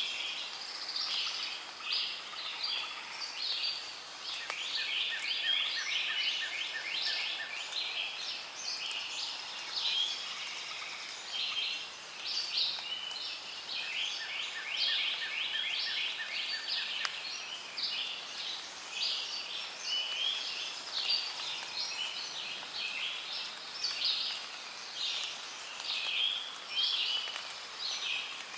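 A dense chorus of many small birds chirping and twittering without a break. Twice, a lower, evenly pulsing trill joins in for a few seconds.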